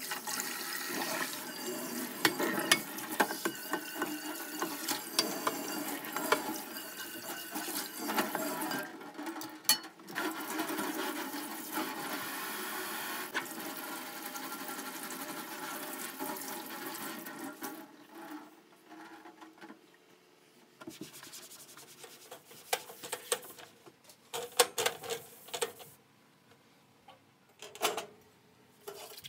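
Kitchen tap running into a stainless steel sink while a frying pan is scrubbed and a cloth is rinsed and wrung, with light knocks of the pan against the sink. The water stops about two thirds of the way in, leaving scattered clicks and metallic clinks, the last of them from the metal parts of a gas stove burner being lifted off.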